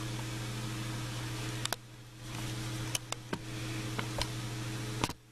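A steady low hum with several light, sharp clicks of metal on metal as a pick tool and small parts are handled on a disassembled ATV engine's crankcase.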